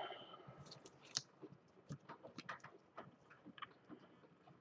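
Faint, scattered small clicks and light taps of trading cards and hard plastic card cases being handled on a tabletop.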